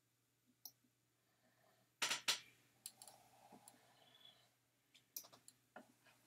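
A few sharp, scattered computer mouse clicks, with a loud pair about two seconds in, against a quiet room.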